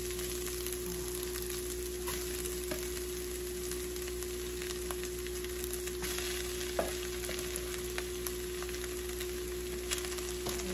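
Bacon, carrots and onion sizzling in a frying pan as scoops of cooked rice are added, with scattered small pops and clicks over the steady frying hiss. A steady hum runs underneath.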